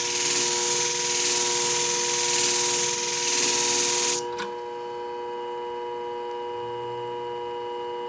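A hair-shear blade being ground on the spinning abrasive disc of a benchtop flat-hone sharpening machine, rocked against it with a steady grinding hiss over the motor's hum. About four seconds in the blade is lifted off: the grinding cuts off suddenly and only the machine's steady hum runs on.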